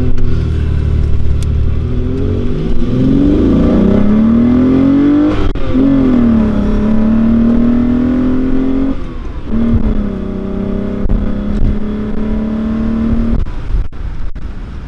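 Naturally aspirated 2.8-litre VR6 in a Golf 4 Cabrio accelerating hard, heard from inside the open-top cabin. Its pitch climbs, drops at gear changes about 5.5 and 9 seconds in, and climbs again before the driver eases off near the end.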